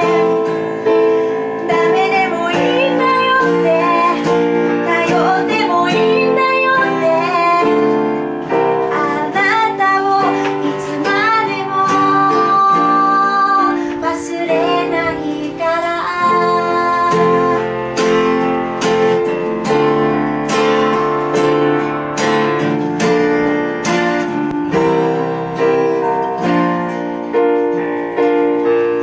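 A woman sings to her own acoustic guitar strumming, with a keyboard playing chords underneath. Past the middle her voice drops out, and the guitar strumming and keyboard carry on as an instrumental passage.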